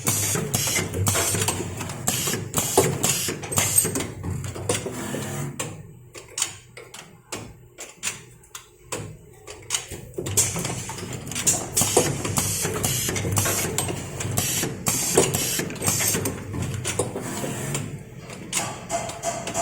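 Six-station automatic soldering machine running, with irregular mechanical clicks and clacks from its moving parts over a steady low hum. The clicks thin out for a few seconds around the middle, then pick up again.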